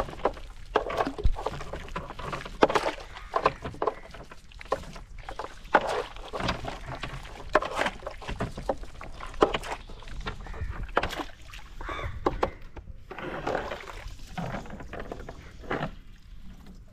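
A catch of small fish flapping and splashing in a plastic tub of shallow water as a cast net is shaken out over it, making many irregular wet slaps and splashes.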